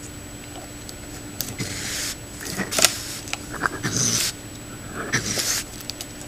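Raccoon close to the trail camera as it hangs at the hummingbird feeder, making short breathy, hissy noises in four bursts a second or so apart.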